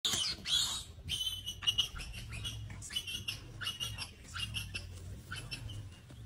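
Short, high-pitched animal calls, repeated again and again, with a louder run at the start. A low steady hum runs underneath.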